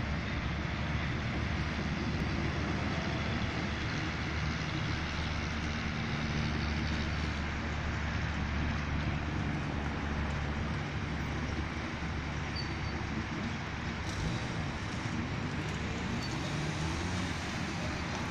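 Steady road traffic and low engine drone from vehicles on a highway. Near the end a car drives past close by, its engine note rising in pitch.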